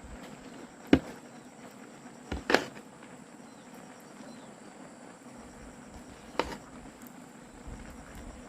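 Three or four sharp knocks, the loudest about two and a half seconds in, over a steady high hiss.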